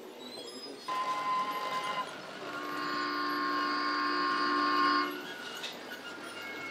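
Two horn-like steady tones: a short one starting about a second in, then a longer, louder chord of several pitches held for about two and a half seconds before cutting off.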